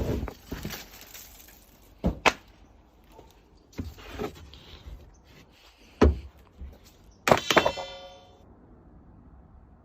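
A handful of separate knocks and clunks of hard objects being handled, then a louder clatter about seven seconds in with a brief metallic ring that dies away within a second.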